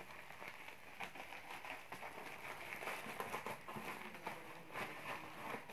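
Thin clear plastic packaging crinkling and rustling as it is handled and shaken open, a steady run of small crackles.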